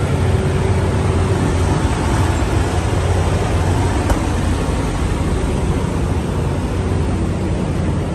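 Diesel semi-truck engines idling, a steady low rumble with a faint constant hum above it.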